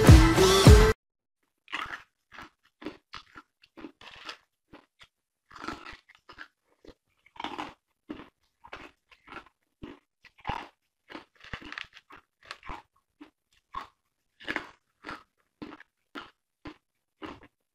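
Intro music cuts off about a second in, then close-up crunching of coloured ice cubes being bitten and chewed: short, sharp crunches about two a second, with silence between them.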